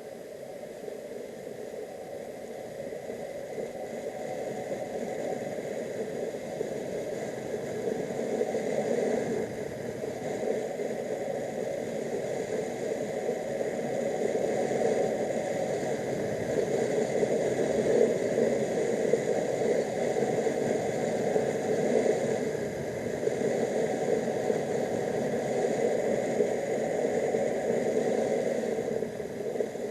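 Motorcycle on the move: engine and wind noise in a steady rush that grows louder over the first fifteen seconds or so, then holds.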